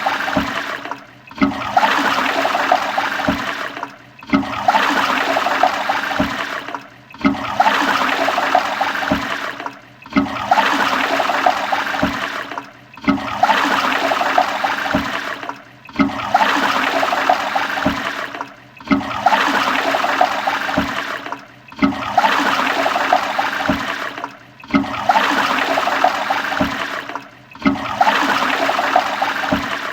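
Toilet flushing: a burst of rushing water that starts suddenly and tapers off, repeated about every three seconds.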